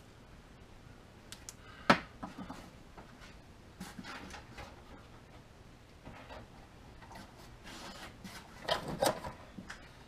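Light, scattered clicks and clatter of small metal parts being handled, with one sharper click about two seconds in and a short cluster of knocks near the end.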